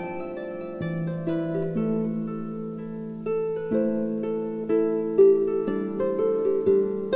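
Background instrumental music: a melody of plucked string notes over lower held notes, moving at an even, unhurried pace.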